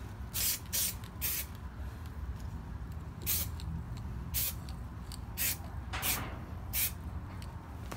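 Aerosol spray can of primer hissing in short bursts, about eight quick passes, as primer is sprayed over a small sanded repair on a car body panel.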